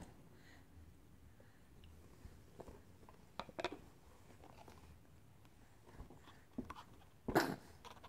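Faint mouth sounds of a baby eating: scattered small smacks and clicks as she chews, with one louder short noise about seven seconds in.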